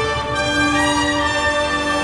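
Orchestral background music with long held notes.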